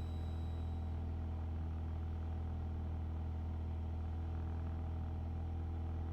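Steady drone of a Piper Warrior's four-cylinder Lycoming engine in flight, an even low hum that does not change.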